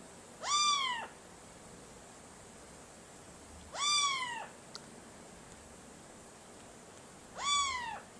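Three meows, each a little over half a second long and rising then falling in pitch, spaced about three and a half seconds apart.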